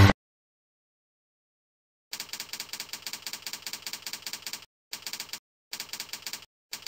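Typing sound effect: runs of rapid key clicks starting about two seconds in, broken by short pauses.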